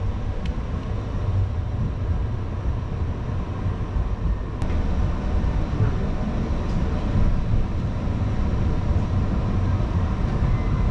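Portland MAX light-rail car running, heard from inside the passenger cabin: a steady low rumble.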